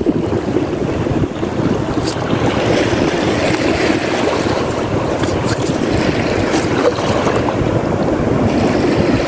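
Steady wind noise on the microphone, with surf washing onto the beach underneath.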